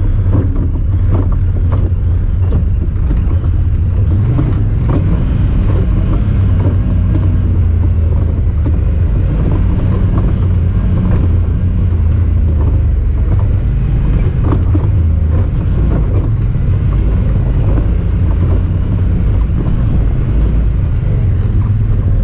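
Honda Talon 1000R side-by-side's parallel-twin engine running steadily under way, with frequent rattling clicks throughout.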